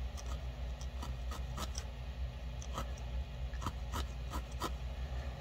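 Felting needle in a wooden handle stabbing into wool roving on a felting mat: a run of irregular light clicks and scratches as the barbed needle pierces and packs the fibres, over a low steady hum.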